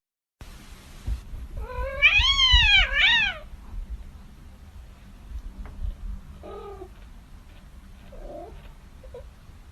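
A cat yowling: a long, loud meow that rises and falls, running straight into a second shorter one, then a few faint short meows later on.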